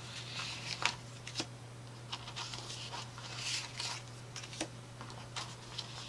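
Paper and cardstock rustling as a paper tag is slid out of a cardstock tag pocket in a scrapbook album and pushed back in, with light taps and clicks of card against card.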